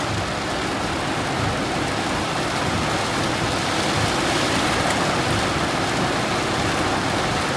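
Heavy rain falling on a car's roof and windshield, heard from inside the cabin as a steady, dense hiss.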